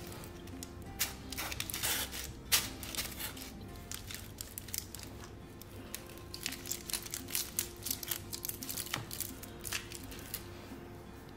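Kitchen knife sawing through a roll of dates and nuts still wrapped in aluminium foil: the foil crinkles and crackles in irregular bursts, with a few sharper clicks of the blade, the loudest about two and a half seconds in. Soft background music plays underneath.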